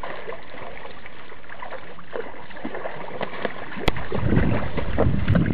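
Pool water sloshing and lapping, with small splashes as a toddler paddles with his hands from a swim ring in an inflatable paddling pool. Just under four seconds in there is a sharp click, and then a louder low rumbling noise.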